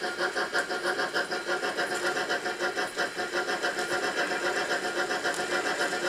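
Simulated steam locomotive chuffing from a model railway sound box: a steady, rapid beat of about six chuffs a second.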